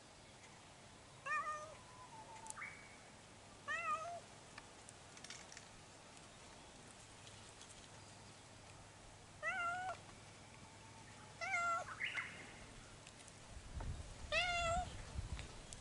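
Cat meowing: five short meows a few seconds apart.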